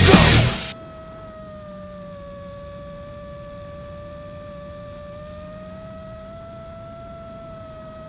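Loud heavy-metal music cuts off suddenly under a second in. It leaves the quieter, steady whine of an FPV quadcopter's motors and propellers at cruise, its pitch sagging slightly and rising again.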